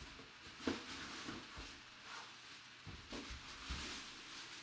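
Handling of a cardboard box and a replica football helmet in a clear plastic bag: scattered rustles and light knocks, with one sharp tap under a second in.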